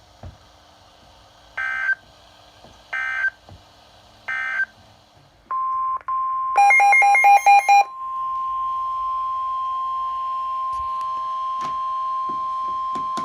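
Emergency Alert System broadcast tones. Three short bursts of digital data tones about a second and a half apart, typical of the SAME end-of-message code, are followed about five and a half seconds in by the steady 1050 Hz NOAA Weather Radio alert tone. About a second after the alert tone starts, a loud flurry of rapid two-tone beeps sounds over it for roughly a second.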